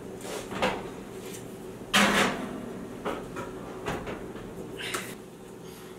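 Oven door of a gas range being handled and a metal muffin tin put in to bake. There is a loud metallic clunk about two seconds in, with several lighter clicks and knocks around it.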